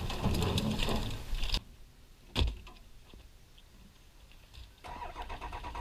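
Cut branches rustling and scraping as they are handled and dragged, stopping abruptly about a second and a half in. A single sharp knock follows about a second later, then quiet outdoor air.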